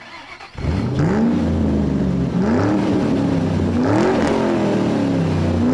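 A car engine accelerating hard, starting about half a second in, its pitch climbing, dropping back and climbing again four times.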